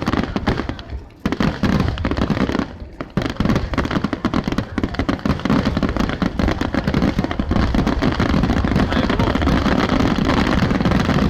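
Aerial fireworks finale: a rapid barrage of shell bursts and crackles. After two brief lulls near the start, the bangs overlap into a continuous volley from about three seconds in.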